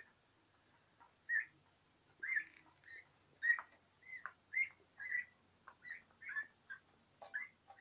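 Young turkeys (four-month-old poults) peeping: short high calls in a steady run of about two a second, some sliding in pitch, from several birds.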